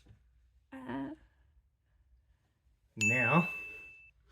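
A repeating electronic chime-like sound: a steady high beep lasting about a second, with a warbling tone beneath it that slides downward, starting about three seconds in. A short pitched sound comes about a second in, and a sharp click at the end.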